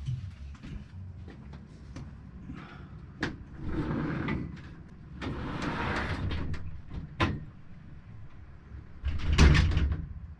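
Pieces of plywood being handled: scraping slides of about a second each, several sharp knocks, and a louder scrape-and-knock near the end.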